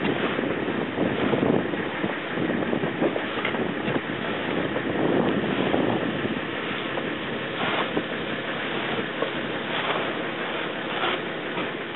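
Wind buffeting the microphone, a steady rushing noise, with a few short louder sounds in the second half.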